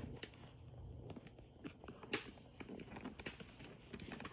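Faint, scattered light clicks and taps, a few each second, with the stronger ones near the middle.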